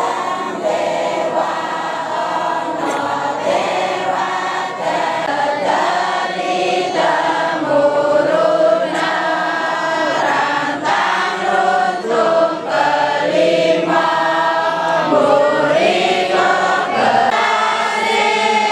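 A group of voices singing a slow chant together in Javanese style, with long gliding sung lines: the invocation song of a cowongan rain-calling ritual.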